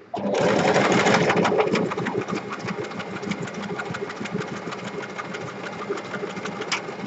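Electric sewing machine stitching around the edge of a bookmark, starting suddenly and running at a fast, steady stitch, a little louder for the first two seconds.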